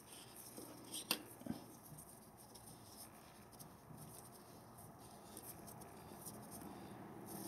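Faint handling sounds of a gloved hand turning the oil filter housing cap onto its housing, with two light clicks about a second in.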